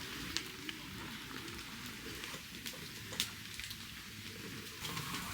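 Steady rain falling, with a few scattered sharp ticks.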